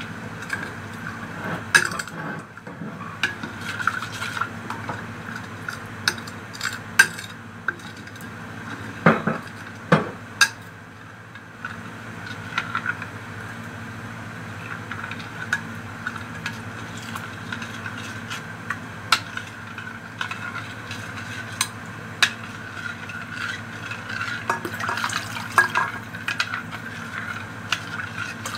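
Metal spoon stirring a thin liquid mixture in a large bowl, with frequent irregular clinks and taps of the spoon against the bowl. A steady hum runs underneath.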